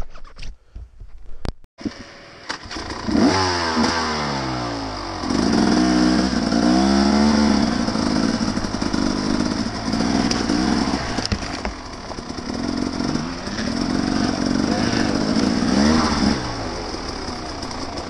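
Dirt bike engine coming in about two seconds in, then revving up and down in repeated surges as the throttle is worked along the trail.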